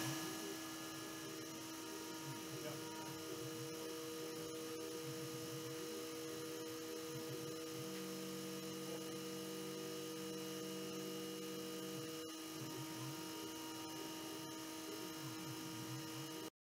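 CNC milling machine's spindle running steadily as its end mill cuts gear profiles, a hum of several held tones. A lower tone joins in for a few seconds in the middle, then drops away.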